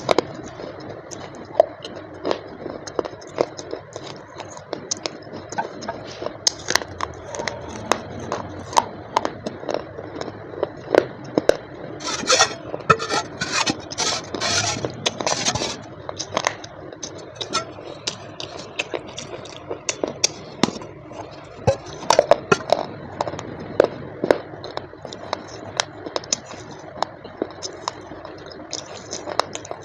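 A parcel being handled and opened at close range: many small clicks, scrapes and crinkles of packaging, with a stretch of louder crinkling or tearing about halfway through.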